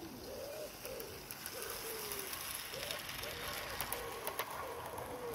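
A pigeon cooing over and over in short curved phrases, with a model train's wheels clicking over the rail joints as it passes close by in the middle.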